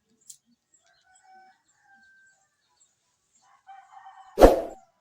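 A rooster crowing in the background, faint at first and stronger near the end, followed by a single loud, sharp bang about four and a half seconds in.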